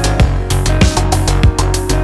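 Background electronic music in a drum-and-bass style, with a fast, steady kick-drum beat and held deep bass notes.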